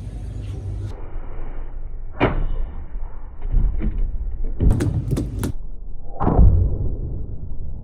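A series of sharp knocks and clacks, several in quick succession about five seconds in, then one heavier thud, over a steady low rumble.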